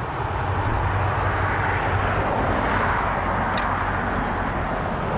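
Steady rumble and rush of outdoor motor traffic, swelling about two to three seconds in, with one short high tick near the middle.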